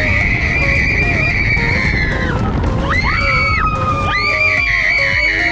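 Roller coaster riders screaming: one long high-pitched scream held about two seconds, then more screams starting about three and four seconds in. Underneath is the rush of wind and the rumble of the steel coaster train.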